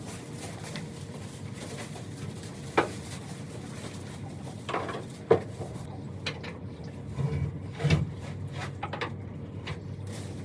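A horse moving about in its stable at feeding time: scattered knocks of hooves and rustling, with a couple of short low sounds about seven and eight seconds in.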